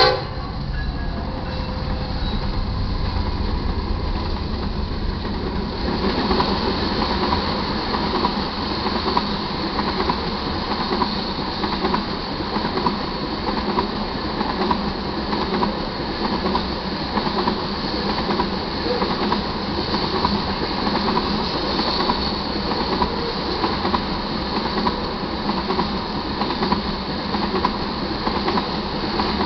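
Freight train passing close by at speed: a deep diesel locomotive rumble for the first few seconds, then a steady rolling rush and clatter of loaded tank-car wheels on the rails.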